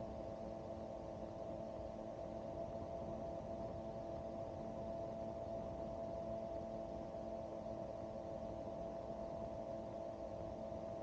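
Turbocharged gyroplane engine and pusher propeller running at climb power, a steady drone of several held tones.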